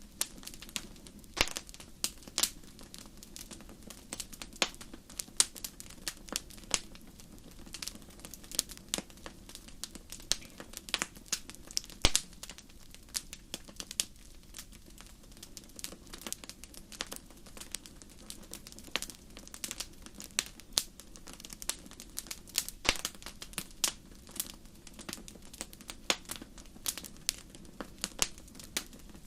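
Fire crackling: irregular sharp pops and snaps, several a second, over a low steady background.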